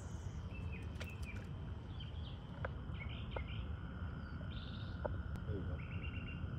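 Birds chirping in short repeated phrases over a steady low rumble, with a few faint clicks.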